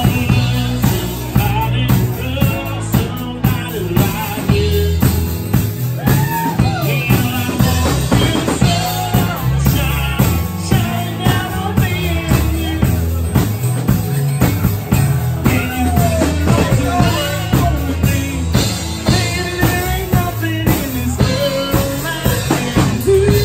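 Live band playing a rock song: acoustic guitar and drum kit keeping a steady beat, with a melody line sliding in pitch above.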